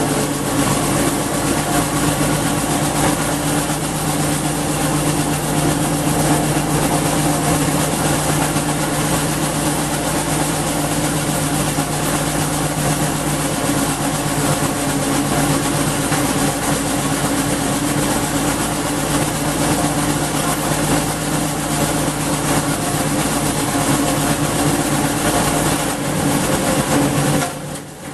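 Briggs & Stratton 5.5 HP single-cylinder engine of a garden wood chipper running steadily at a constant speed, loud and even, on a freshly cleared carburettor main jet. The sound drops briefly about a second before the end.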